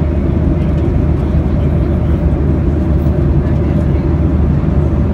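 Steady cabin noise of a Boeing 737-800 in flight: a constant low drone of the jet engines and airflow with a faint steady tone above it.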